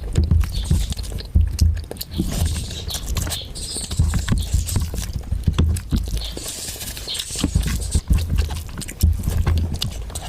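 Close-miked eating sounds: chewing and mouth noises of someone eating chicken curry with rice, with repeated low thuds and many short wet clicks and smacks.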